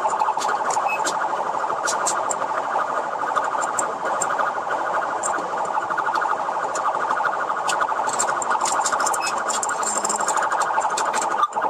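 Police car siren sounding continuously in a rapid warble, with scattered sharp clicks; it drops out for an instant near the end.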